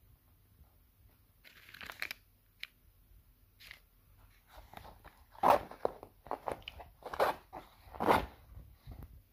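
A string of irregular crunches and sharp cracks close to the microphone. They start about a second and a half in and are loudest from about halfway on.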